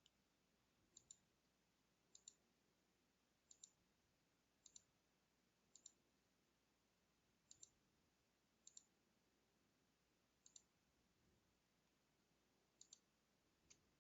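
Faint computer mouse clicks, coming in quick pairs about nine times with a single click near the end.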